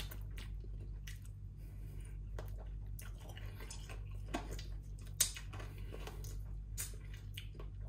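A person chewing grilled chicken picked off the bone: irregular short mouth clicks and smacks, the sharpest about five seconds in, over a steady low hum.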